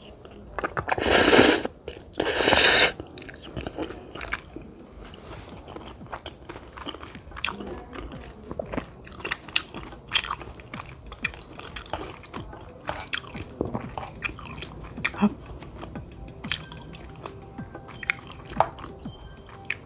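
Close-miked eating sounds of cheesy spaghetti with meatballs being chewed: wet chewing with many small clicks and smacks. Two loud bursts of noise come within the first three seconds.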